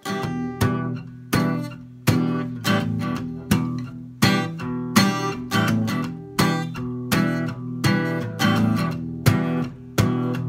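Acoustic guitar strummed in a steady rhythm, with an accented stroke about every three-quarters of a second and lighter strokes between, the chords ringing on between strokes.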